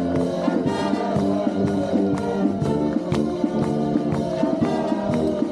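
Brass marching band playing a march, held brass chords over a steady drum beat of about two strokes a second.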